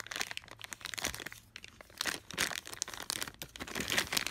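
Clear plastic bag crinkling irregularly as hands squeeze and work it open around a bundle of test leads.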